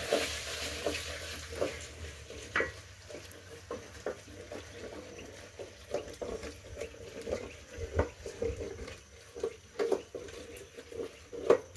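Irregular light clicks and knocks of a utensil against cookware, one or two a second, like stirring or scraping in a pot; the loudest knock comes near the end.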